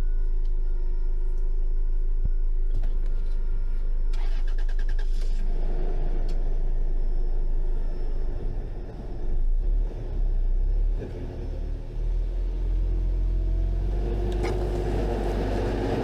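Car engines running under load as a stuck car is pulled on a tow rope. The engine note grows rougher and uneven in the middle and climbs in pitch near the end. A brief rattle comes about four seconds in.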